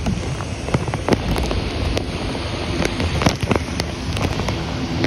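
Wind buffeting the microphone with a steady low rumble, and irregular sharp ticks and taps scattered throughout.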